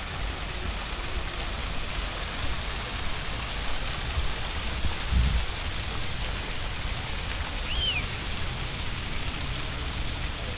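Steady hiss of splashing fountain water, with a brief low rumble about halfway through.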